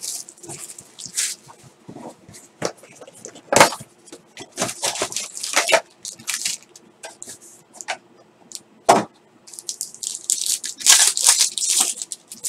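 Plastic shrink wrap crinkling and tearing as it is stripped off a sealed trading-card box, in repeated short bursts, with two sharp knocks of the cardboard box being handled. Near the end a foil card pack rustles as it is torn open.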